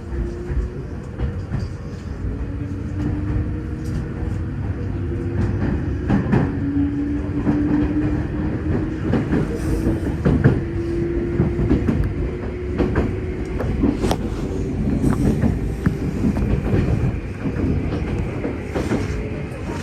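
Passenger train running on rails: a steady low rumble with irregular wheel clacks and knocks over the rail joints, and a whine that slowly rises in pitch as the train picks up speed.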